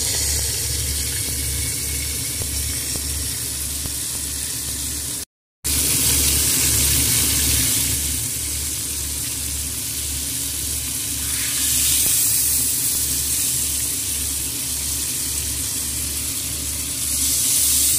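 Wagyu New York strip steak sizzling as it sears in butter and olive oil with garlic cloves, a steady frying hiss. The sound cuts out completely for a moment about five seconds in, and swells louder near the end.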